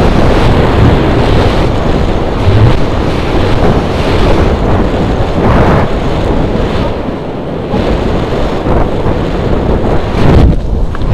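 Loud, gusting wind noise from the airflow of a paraglider in flight buffeting an action camera's microphone, easing briefly about two-thirds of the way through.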